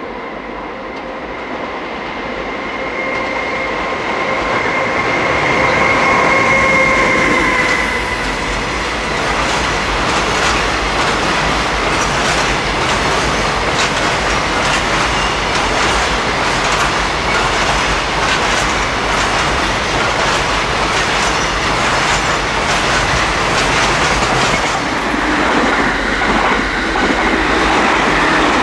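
JR Freight EH500 electric locomotive approaching with a steady whine, followed by a long container freight train rolling past, its wheels clicking rhythmically over rail joints under a continuous rumble.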